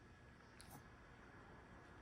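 Near silence: room tone, with a couple of faint ticks just after halfway.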